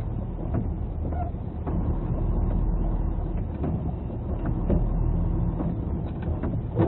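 Truck engine running and tyre noise on a wet road, heard inside the cab while driving: a steady low rumble with a few faint ticks.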